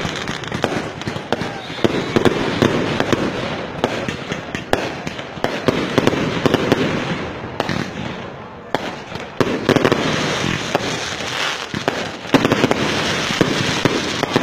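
Fireworks going off in a dense, rapid run of popping and crackling, easing briefly a little past the middle before picking up again.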